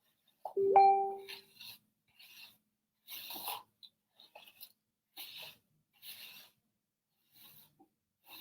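Bristle hairbrush drawn through hair in a series of soft rasping strokes, about one a second. About a second in, a knock with a short ringing tone, the loudest sound.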